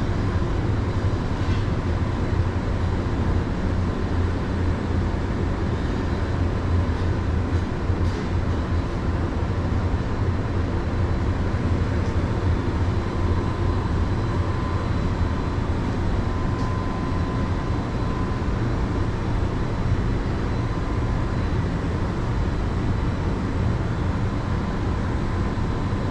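Hong Kong Light Rail Phase I train giving a steady low hum and rumble, with a faint high whine, from its running equipment.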